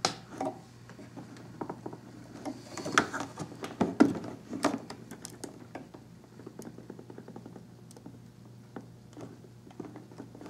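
Hands pressing and fitting a CPU cooler's plastic clips onto a motherboard: scattered small plastic clicks and knocks, the loudest about three to five seconds in, over a faint steady low hum.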